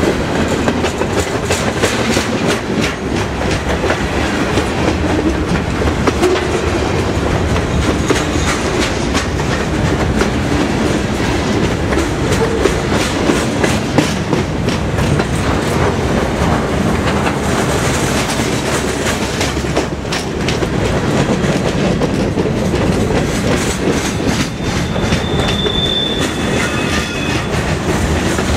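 Freight cars of a CSX freight train (covered hoppers and boxcars) rolling steadily past at close range, wheels clicking over rail joints in a continuous clickety-clack. A brief high squeal comes near the end.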